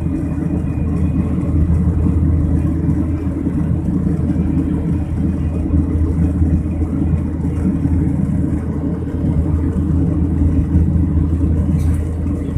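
Jet airliner cabin noise in flight: a steady low rumble of engines and rushing air heard from a seat by the window.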